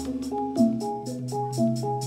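Live jathilan dance music: a melody of short notes stepping up and down over a held low note, with a quick, regular high ticking.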